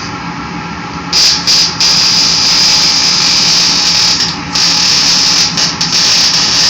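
Welding arc sizzling in runs, starting about a second in and stopping briefly a few times as the arc breaks, over a steady hum.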